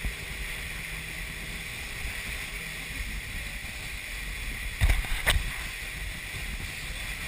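Motorboat under way: a steady drone of motor, rushing water and wind. About five seconds in come two sharp thumps close together as the boat pitches in the chop.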